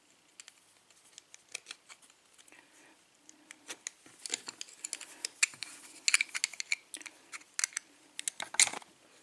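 Small metal clicks and scrapes of a tool working at the retaining clip on the back of a Schlage lock cylinder, trying to prise it off the plug. The clicks are irregular, sparse at first and busier from about halfway through, with a louder clack near the end.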